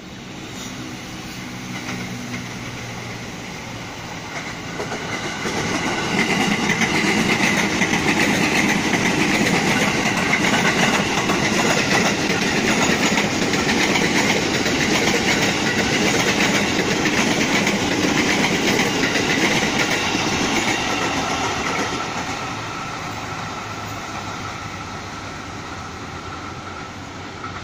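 Ex-JR East 205 series electric commuter train passing: the running noise of its wheels on the rails builds over about five seconds, holds loud for about fifteen seconds, then fades as the train draws away.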